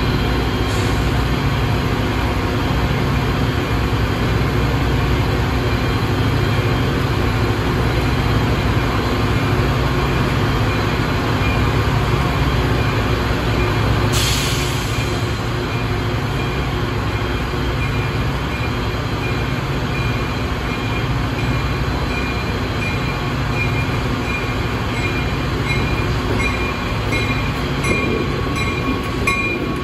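Diesel locomotives running with a loud, steady low drone, including a Union Pacific yard locomotive moving light toward the platform. About halfway through there is a short hiss of released air, and over the last few seconds thin high squealing tones come in as the locomotive draws near.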